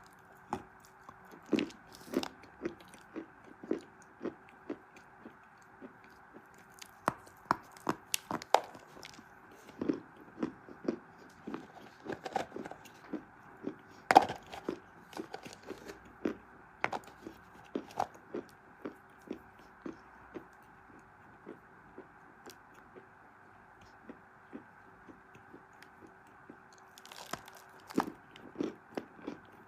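Chalk being bitten and chewed close to the microphone: irregular sharp crunches of varying loudness, the loudest about 14 s in, over a faint steady hum.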